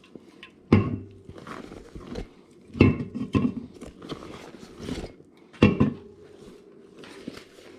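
Handling noise from a sling bag: three loud knocks, about two and a half seconds apart, with quieter rustling and fabric handling between them.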